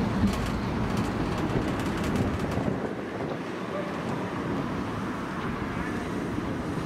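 Steady noise of steam locomotives standing in steam at a depot, mixed with wind buffeting the microphone. A few faint clicks come in the first few seconds.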